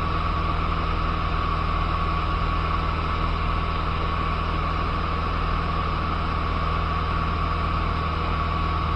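Cessna 150's four-cylinder Continental O-200 engine and propeller heard from inside the cabin in cruise: a steady, unchanging drone with a constant high tone riding over it.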